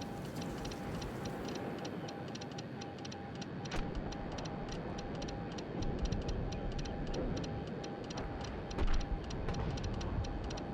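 Morse code sent as a single steady beep, keyed on and off in dots and dashes throughout, over a background hiss and rumble with a fast, even ticking and a few dull knocks.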